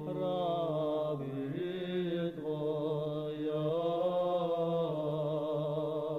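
Male monastic choir singing a slow Orthodox memorial chant in several parts: a bass note held low and steady under upper voices that move slowly from chord to chord.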